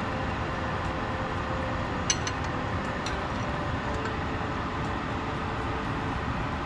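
Steady whooshing hum of a kitchen blower fan running. A couple of light clinks of a utensil against the pot come about two and three seconds in.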